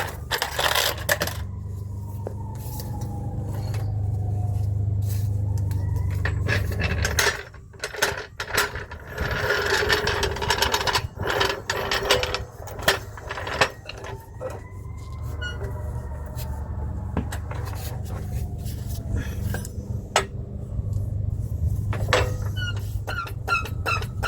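Metal clanks, knocks and scrapes of hand tools and drivetrain parts being worked on under the SUV during front differential removal, irregular throughout, over a steady low hum.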